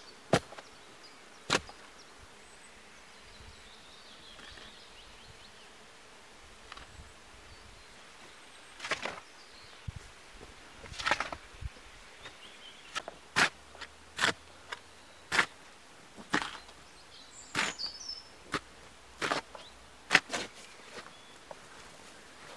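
A shovel blade striking and cutting into packed earth, with dirt thrown off it; sharp irregular strikes, two near the start, a lull of several seconds, then about one a second.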